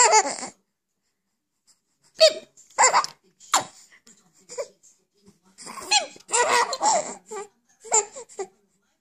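Four-month-old baby boy laughing in short bursts of giggly, squealing laughter with pauses between. He starts up again about two seconds in, and his longest run of laughter comes from about five and a half to seven and a half seconds.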